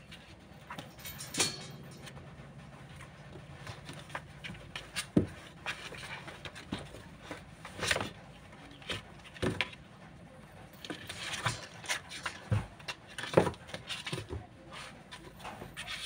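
Kittens play-fighting on cardboard: irregular scratching, scraping and bumping of paws and claws on the box floor, with a few sharper knocks scattered through.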